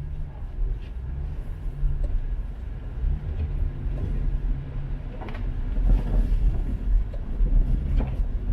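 A car being driven, heard from inside the cabin: a steady low rumble of road and engine noise, with a few short knocks or rattles in the second half.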